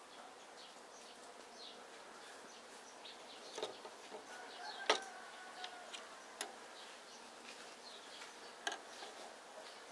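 Light plastic clicks and taps from a brick-built toy spaceship model being handled and turned, a handful of them, the loudest about five seconds in. Under them runs a faint steady background with short high chirps and buzzing.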